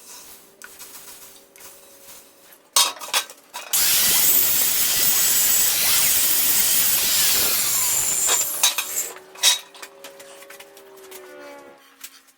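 A power tool cutting or grinding steel runs loud and steady for about four and a half seconds, starting and stopping abruptly. A few sharp metallic knocks come just before it and just after.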